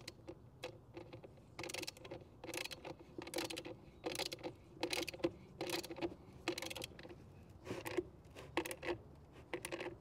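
Socket ratchet wrench clicking in short repeated bursts, about a dozen back-swings, as it tightens the bolt on a battery's negative terminal post.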